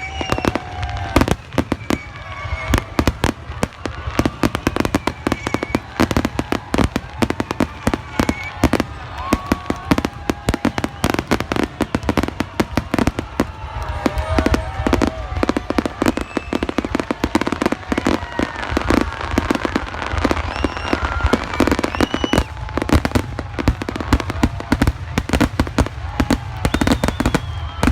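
Fireworks display: aerial shells bursting in rapid, dense succession, many bangs and crackles a second throughout, with voices of onlookers mixed in.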